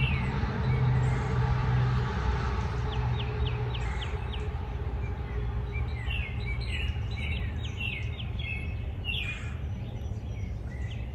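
Small birds chirping in several short runs of quick high notes, over a steady low background noise.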